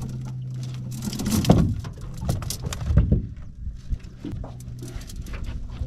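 Collapsible crab pot rattling and clattering as it is shaken out, with knocks as a mud crab drops onto the boat deck; the loudest knocks come about one and a half and three seconds in. A steady low hum drops out about a second and a half in.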